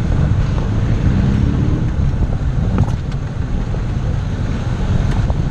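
Car driving, with a steady low rumble of road and wind noise on the microphone. A few brief sharp clicks sound about three seconds in and again about five seconds in.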